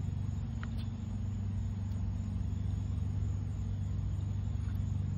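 A steady low rumble of motor vehicle noise, with a faint tick about a second in.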